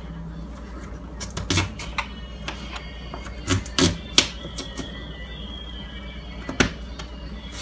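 Kitchen knife cutting through raw sweet potato and knocking on the cutting board: irregular chops, a cluster in the first half and one more near the end.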